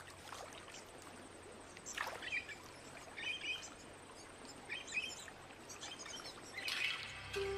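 Birds chirping in short bursts every second or two over a faint, even outdoor background hiss.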